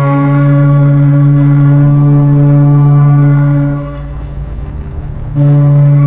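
Ship's horn sounding a long, loud, deep blast that stops a little before four seconds in. After a short gap with a low rumble, a second blast starts about five and a half seconds in.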